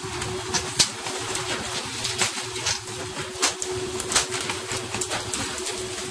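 Tuna slapping onto a fishing boat's deck as they are flung in on rods: sharp, irregular smacks several times a second over a steady hum and rushing spray.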